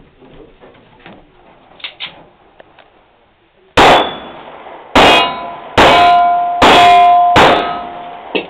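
Five pistol shots from a 1911-style .45 pistol about a second apart, starting about four seconds in. Each shot is followed by the ring of a steel target being hit.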